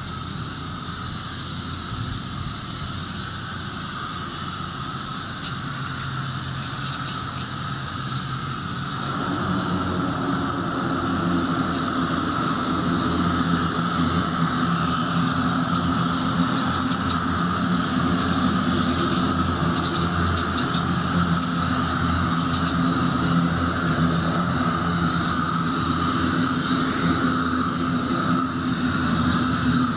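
Twin turboprop engines and propellers of an ATR 72-600 running on the runway: a steady drone with a fixed whine. It grows markedly louder and fuller about nine seconds in and stays loud.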